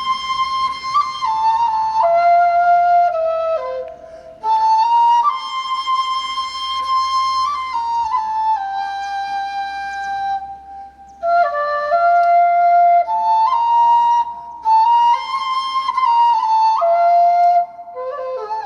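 Quena, the Andean end-notched flute, playing a slow melody of held notes, with short breaks between phrases.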